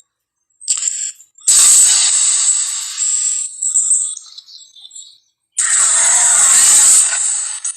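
Film monster roar sound effects: a short burst about half a second in, then a long roar that fades away, and after about a second of silence another loud roar near the end.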